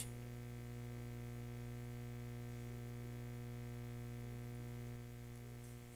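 Steady low electrical hum with a ladder of higher overtones, the mains hum picked up by the recording microphone chain, with nothing else over it.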